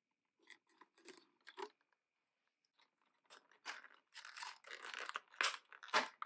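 Thin clear plastic doll packaging crinkling and crackling as it is worked off the doll by hand: a few light rustles, a short pause, then a longer run of crackling with a couple of sharp snaps near the end.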